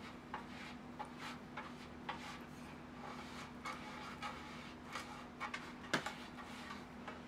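Silicone pastry brush stroking grease over a nonstick metal baking pan: soft, irregular brushing swishes and light ticks against the metal, with one sharper tap about six seconds in. A faint steady hum sits underneath.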